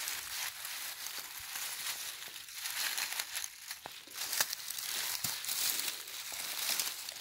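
Dry fallen leaves rustling and crackling as a hand brushes and scrapes them aside on the forest floor, with a few sharper crackles among the rustle.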